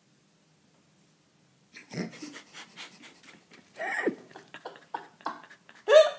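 Two young dogs chasing each other across a wooden parquet floor: a scattered run of short scuffling and animal noises begins about two seconds in.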